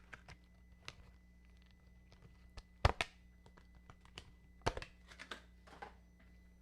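Scattered clicks and knocks from handling a braided charging cable and its packaging, the two loudest knocks about three seconds in and just under five seconds in, over a steady electrical hum.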